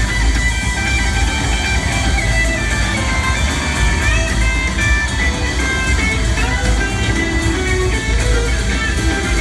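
Live rock band jamming instrumentally. An electric guitar plays a moving lead line over bass and the rest of the band.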